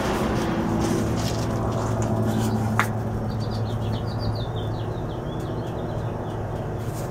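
Detroit Diesel engine of a 300 kW generator set winding down after shut-down: a steady low hum slowly fading, with one sharp tick about three seconds in. A bird chirps briefly in the middle.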